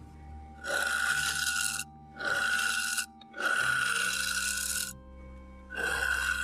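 Carbide turning tool cutting a spinning blank of dry old pine on a wood lathe: four scraping cuts of about a second each, with short breaks between, each with a steady ringing tone in it.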